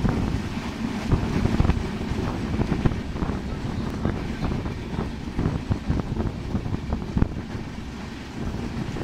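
Padma Express passenger train running at speed, heard from a carriage window: a steady low rumble with irregular clacks from the wheels on the rails. Wind buffets the microphone.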